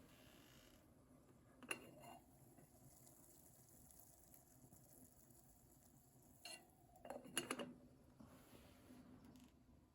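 Near silence broken by a few faint clinks of utensils against a cooking pot: one about two seconds in, another past six seconds, and a short run of them a little after seven seconds.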